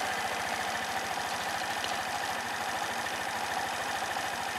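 Suzuki Address V125S scooter's single-cylinder four-stroke engine idling steadily with an even, rapid firing beat, running in good order.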